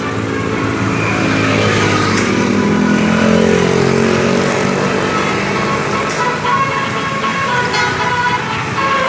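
Tour bus engine running close by, its pitch sweeping down about a third of the way in, with the bus's horn sounding in short broken tones in the second half.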